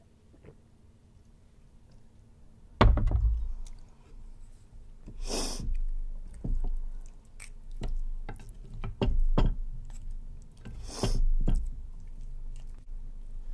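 A glass set down on the table with one loud knock about three seconds in. Then chopsticks and a wooden spoon stir rice and saucy tteokbokki in a bowl, with scattered clicks, wet squishes and two longer scrapes against the bowl.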